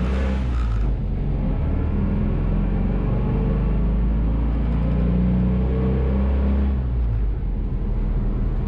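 Vehicle engine and road noise heard from inside the cab while driving, a steady low drone that eases off about seven seconds in.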